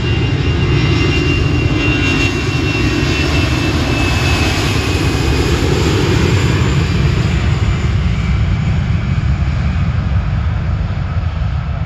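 Jet airliner passing close, its engines running with a loud rush and a thin high whine that slowly drops in pitch, easing off slightly near the end.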